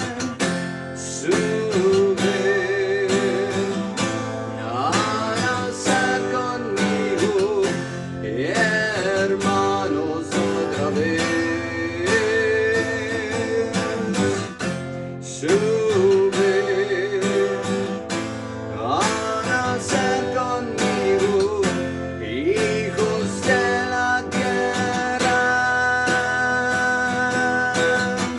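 Acoustic guitar strumming chords under a melody line that wavers and slides in pitch, an instrumental stretch of a folk-rock song.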